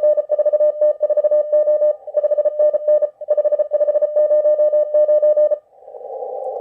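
Morse code on a ham radio transceiver: a steady mid-pitched CW tone keyed quickly in dots and dashes. About five and a half seconds in the keying stops and receiver hiss takes over.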